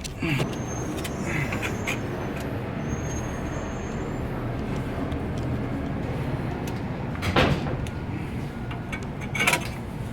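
Metal knocks and clanks from handling the cooling deck and its screws inside a vending machine: one just at the start, a sharp one about seven seconds in and another near the end. A steady low hum runs underneath.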